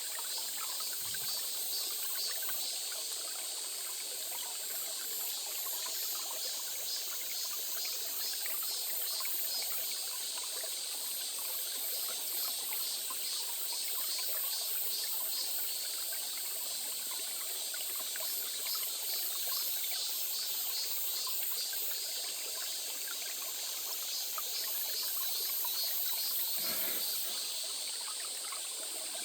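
Small stream trickling and flowing steadily, with a high, fast pulsing buzz over the water.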